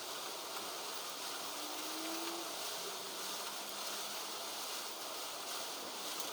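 Steady hiss of wind outdoors. About two seconds in there is a faint, short rising hum.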